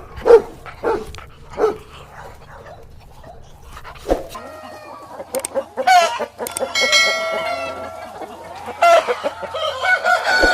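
Rooster crowing and chickens clucking, heard from about halfway, with one long drawn-out crow. Three short loud calls come near the start.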